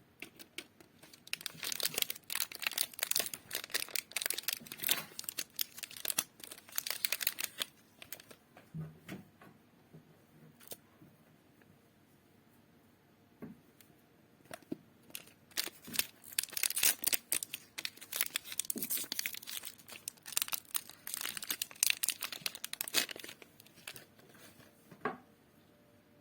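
Chocolate and wafer wrappers being torn open and crinkled by hand, in two long spells of dense crackling rustle with a quieter stretch of a few clicks and handling sounds between them.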